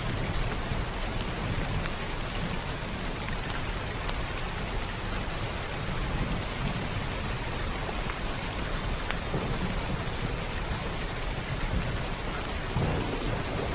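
Heavy rain falling steadily on a roof, with low rumbling thunder underneath that swells near the end.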